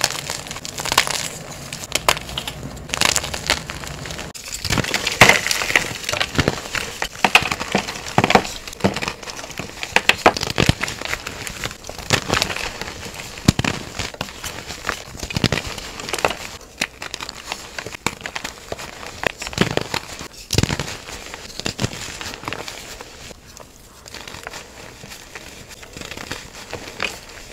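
Reformed gym chalk blocks crushed and crumbled in bare hands: a long run of irregular crunches and crumbles, some sharper and louder than others, with short lulls between handfuls.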